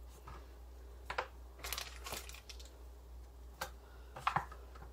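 A few light clicks and crinkles from a disposable aluminium foil pan as ravioli are set into it by hand.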